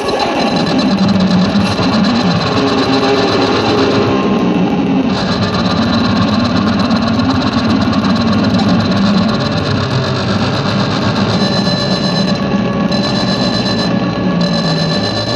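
Experimental noise music: a dense, loud, grinding drone with a thin steady high whine over it.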